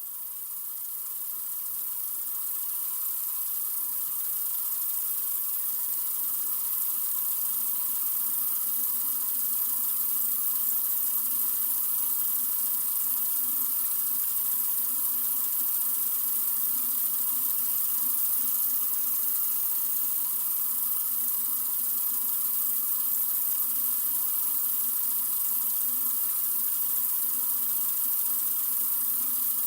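Water running steadily from a sink faucet in an even stream, rising in level over the first few seconds and then holding steady.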